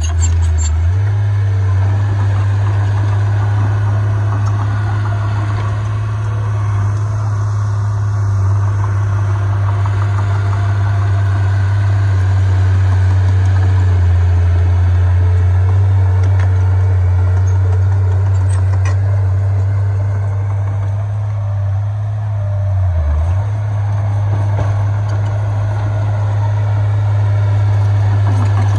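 Heavy diesel engine of earthmoving machinery running steadily with a deep, continuous hum. It dips briefly about two-thirds of the way through, then carries on.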